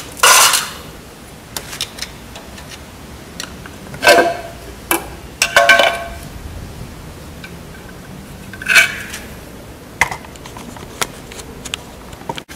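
Metal clanks, knocks and scrapes as the camshaft cover is worked loose and lifted off a diesel engine's cylinder head, with tools knocking against the cover and head. About six sharp clanks come at irregular intervals, with lighter clicks between.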